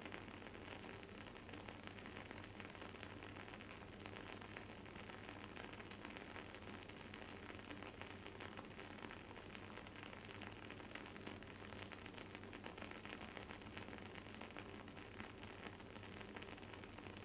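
Wood-wick candle burning with a soft, continuous crackle: dense fine pops and sizzling over a faint steady hiss.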